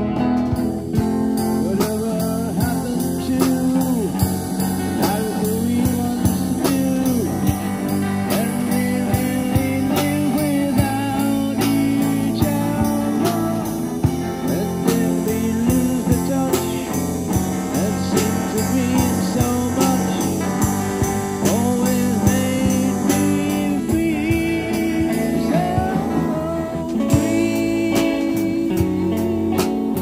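Small rock band playing live: a strummed acoustic guitar, a hollow-body electric guitar and a compact drum kit, with a sung vocal.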